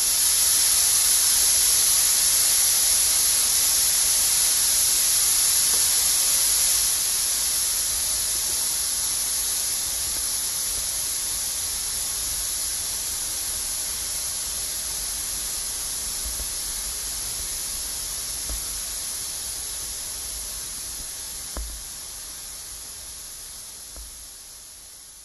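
Stage fog machine blowing fog: a steady, loud hiss that starts suddenly, eases a little after several seconds and then slowly fades away, with one faint knock near the end.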